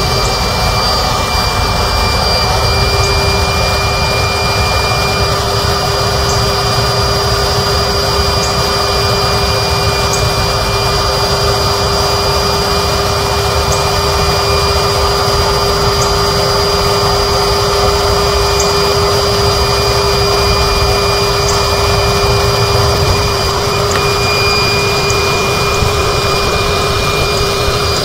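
A 12-volt electric air pump runs steadily with a continuous whine as it inflates an air mattress.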